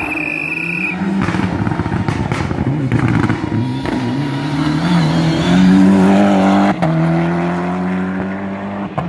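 Mitsubishi Lancer Evo IV rally car's turbocharged four-cylinder engine at full stage pace, its note climbing and dropping through several gear changes as it approaches. It is loudest as it passes about six seconds in, then a sharp break and a steadier note as it pulls away.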